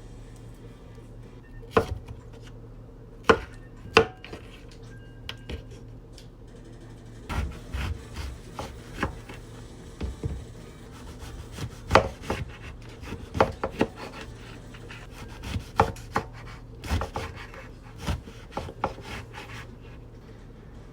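Kitchen knife chopping on a wooden cutting board: sharp knocks, some single and some in short quick runs, over a steady low hum.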